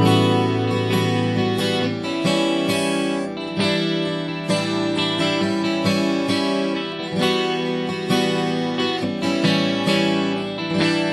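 Background music led by strummed acoustic guitar, with chords struck at a regular pace.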